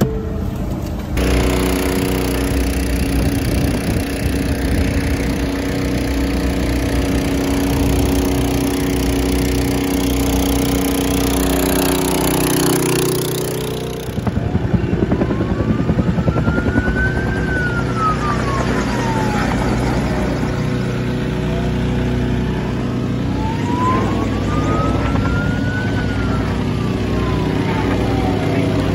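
A vehicle engine running with a steady hum. About halfway through, an emergency-vehicle siren starts wailing slowly up and down, two long rises and falls over a continuing engine rumble.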